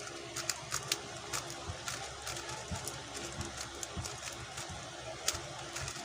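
QiYi X-Man Tornado V2 speedcube being turned fast during a solve, its plastic layers giving quick, irregular clicks and clacks, with one sharper clack near the end.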